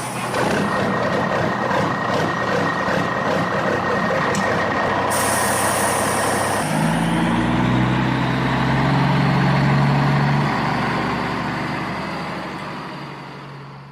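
Designed robot-transformation sound effect in the style of the live-action Transformers films: dense, crunchy mechanical clanking and whirring. About seven seconds in it gives way to a deep truck-like engine running, which swells and then fades out near the end.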